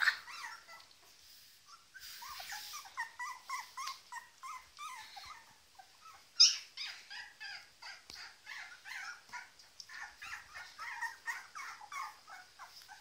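Litter of two-and-a-half-week-old puppies whimpering and squeaking, many short high-pitched cries several a second, starting about two seconds in. One sudden louder, sharper sound about six seconds in.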